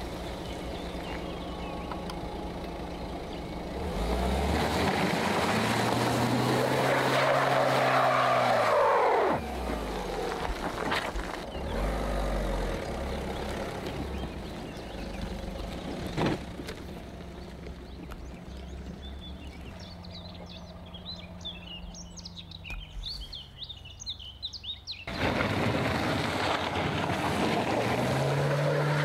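Peugeot 2008's engine revving hard under load as the car pulls through mud. Its pitch climbs and then falls away twice, with a quieter stretch in between where birds chirp.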